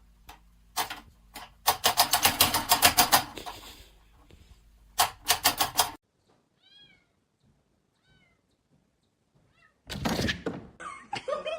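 Rapid knocking and tapping in quick runs, then three short faint cat meows a second or so apart. A loud sudden burst of noise comes near the end.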